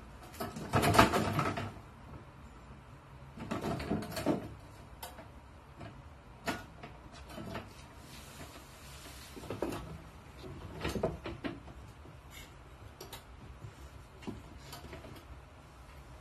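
Kittens play-fighting in a small plastic toy wrestling ring, the ring knocking and rattling in short irregular bursts with light thumps.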